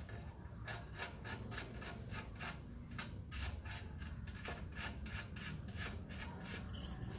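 A bolt being screwed by hand into the bottom of a motorcycle's front fork leg: faint, quick scraping ticks, about four a second, as the threads turn. A light metallic clatter comes right at the end.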